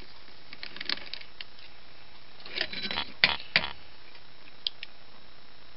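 Metal clicks and scraping as a screwdriver pries the steel cover plate off a Winkhaus multipoint lock case. There are a few light clicks, a short scrape about two and a half seconds in, then two sharper clicks.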